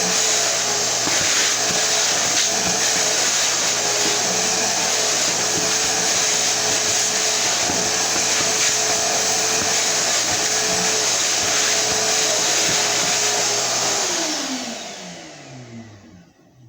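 7.5-gallon shop vacuum running steadily, then switched off about 14 seconds in, its motor winding down with a falling whine.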